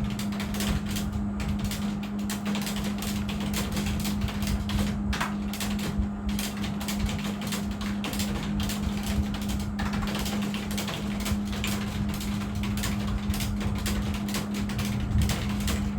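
Computer keyboard keys clicking in fast, continuous typing, over a steady low hum.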